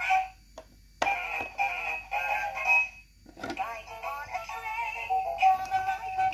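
Fisher-Price Laugh & Learn ABC Train toy playing electronic sung phrases and tunes through its small speaker as its buttons are pressed, with short breaks between phrases about half a second in and about three seconds in.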